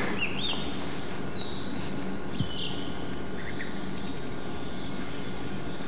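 Small birds giving a few short chirps over a steady low hum, with one soft click about two and a half seconds in.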